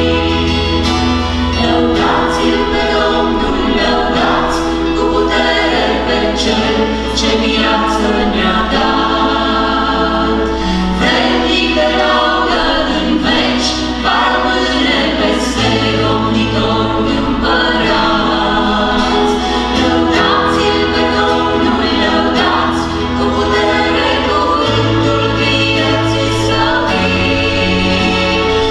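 A worship group of women's and men's voices singing a gospel song in harmony, accompanied by acoustic guitar and electric bass, the bass holding low notes that change every few seconds.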